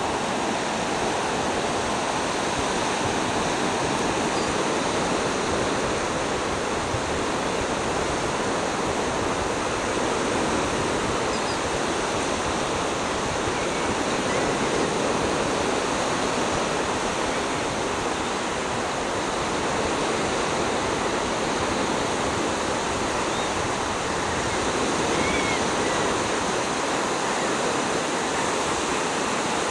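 Gulf surf breaking on the beach: a steady, unbroken roar of waves.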